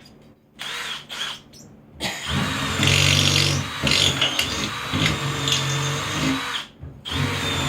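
Power drill driving screws into wood: it starts about two seconds in and runs steadily, stops briefly near the end, then starts again.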